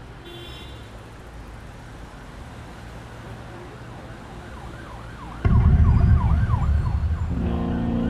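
City ambience: a low rumble at first, then about five seconds in a sudden, louder rumble with an emergency siren rapidly warbling up and down. Near the end a low, steady music drone comes in under it.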